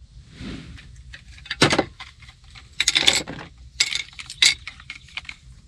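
Screwdriver prying a Kenworth emblem off a panel: a handful of sharp clicks and scrapes, with a clatter of small tools and parts in between.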